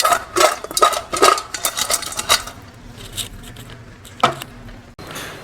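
Cut crab pieces clattering in a bowl as they are tossed and mixed with turmeric and pepper: a quick run of clinks for about two and a half seconds, then quieter, with one last clack near the end.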